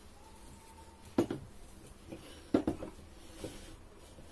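Aluminium Coke cans being set down and shuffled on a wooden table: a few sharp knocks, one about a second in and two close together near the middle, with softer taps between.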